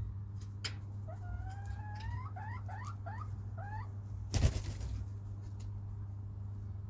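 Hen giving a string of short rising calls, a first longer upswept note followed by about five quick upward chirps. About four and a half seconds in there is a single loud thump. A steady low hum runs underneath.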